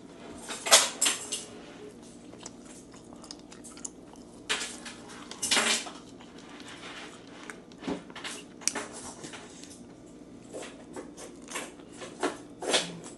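Eating close to the microphone: chewing and crunching of naem and crispy fried garlic and chilies, heard as a string of short crunches and clicks. Light knocks come from food being picked from the tray.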